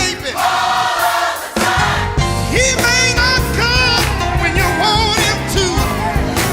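Gospel song playing: singing voices with vibrato over a band with a steady bass, the bass dropping out briefly early in the first two seconds before coming back in.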